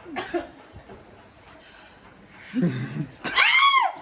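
A person sneezing from sneezing powder: a low huff about two and a half seconds in, then a loud, high-pitched voiced sneeze near the end that rises and falls in pitch.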